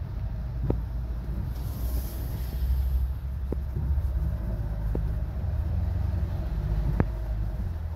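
Car cabin road noise: a steady low rumble of a car driving on a wet street, with a brief hiss about two seconds in and a few sharp ticks scattered through it.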